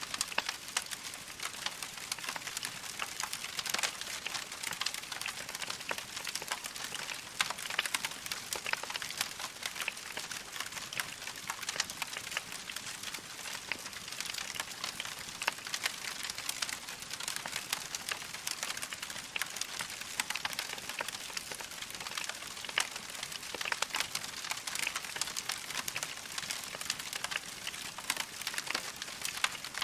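Fire in a fireplace crackling steadily: a dense, continuous run of small pops and snaps.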